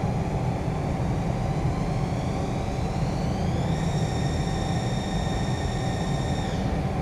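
Haas ST-10 CNC lathe running with a steady hum and a constant tone. About two seconds in, a whine from the machine rises in pitch, holds steady for about three seconds, then stops shortly before the end.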